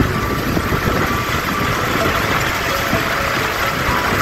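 Steady engine and road noise of a car driving, heard from inside the vehicle.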